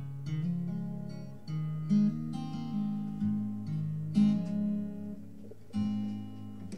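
Acoustic guitar fingerpicked, with picked notes ringing over a bass line and a louder accented chord about every two seconds.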